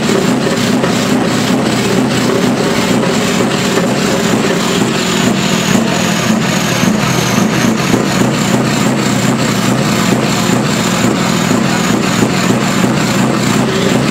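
Heavy truck's diesel engine idling steadily, heard close beside the truck.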